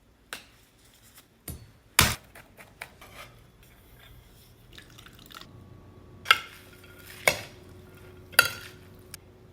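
Kitchenware clinking and knocking during salad preparation. There are scattered sharp knocks with short ringing tails, and a run of three loud ones about a second apart near the end.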